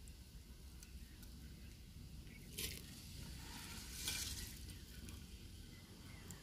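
Soaked urad and chana dal turned over by hand in a shallow clay dish: a faint wet rustle of the lentils, with two short louder swishes about two and a half and four seconds in.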